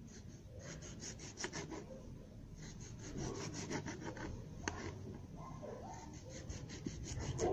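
Small kitchen knife sawing through a tomato on a wooden cutting board, in three short runs of quick back-and-forth strokes, with a single sharp click near the middle.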